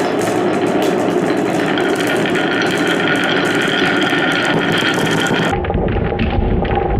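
Many marbles rolling and clattering down the wooden wave slopes of a HABA marble run: a dense, continuous rattle of clicks. About five and a half seconds in, the sound turns abruptly duller, with more low rumble.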